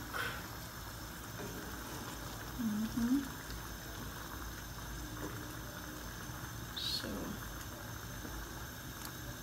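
Chicken pieces simmering in coconut milk in an open pan, a steady bubbling hiss, while a wooden spatula is stirred through them.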